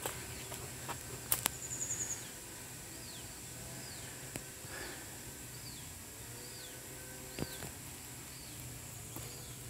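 Forest wildlife: a short falling call repeated about every two-thirds of a second over a steady high-pitched insect buzz. A few sharp clicks come in the first two seconds.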